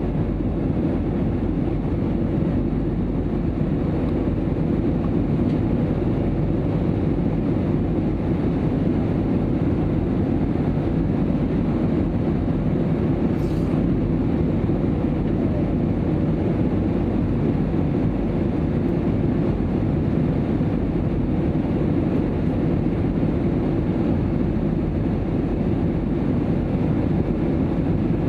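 Steady cabin noise inside a jet airliner in flight: the low, even rumble of engines and airflow, with a faint steady hum over it.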